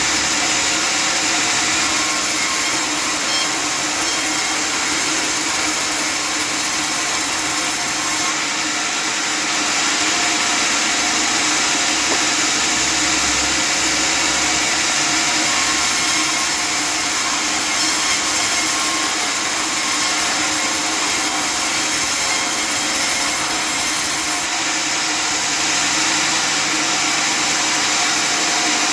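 Custom-made table sawmill running and cutting wood: a steady, loud machine noise with its blade in the cut.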